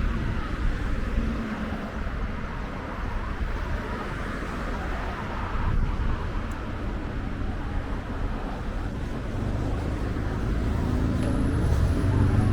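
Steady road traffic rumble, with a vehicle's low engine sound growing louder in the last few seconds.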